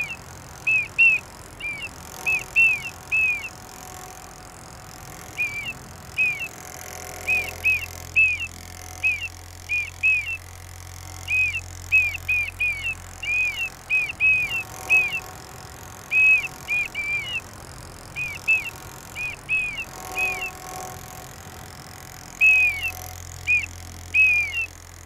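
A child blowing a plastic whistle in many short blasts, grouped in irregular phrases with gaps like spoken sentences; each blast is a brief high tone that falls slightly at the end. The whistle blasts are his way of speaking: a child with cerebral palsy who can only communicate with the whistle.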